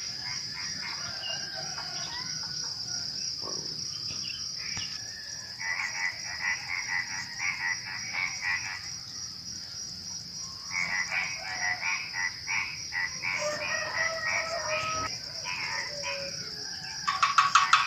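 Frogs croaking in bouts of rapid pulsed calls, over a steady high-pitched trill of crickets. A louder frog close by starts calling just before the end.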